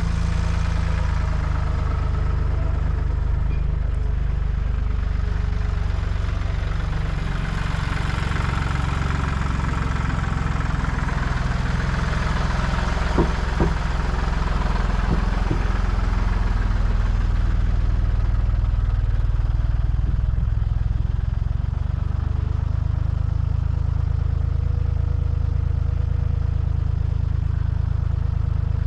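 Old farm tractor engine running steadily, heard up close. A few sharp clicks come about halfway through.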